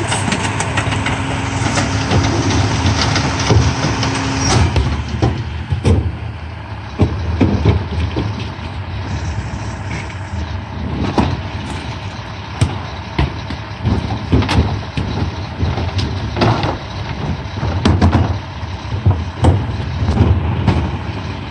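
Mack MRU McNeilus rear-loader garbage truck running at the curb. A steady hum and heavy noise carry on for about the first four and a half seconds, then cut off suddenly. The engine then runs lower, with repeated clanks and thumps from the rear body.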